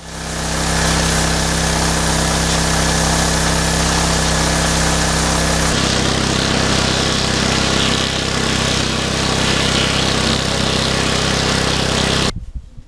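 Engine-driven pressure washer running steadily, its engine tones under the strong hiss of the water jet. The sound changes abruptly about six seconds in and cuts off sharply near the end.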